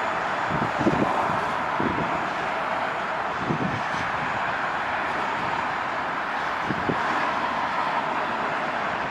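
A freight train's last cars rolling away on the rails: a steady rumble with a few low thumps.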